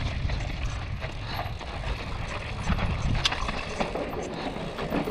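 Yeti SB150 mountain bike riding down a loose, rocky dirt trail: the tyres rolling over dirt and stones and the bike rattling, with a few sharp clicks and knocks from the bike, over a rough, steady rumble of wind buffeting the helmet-mounted microphone.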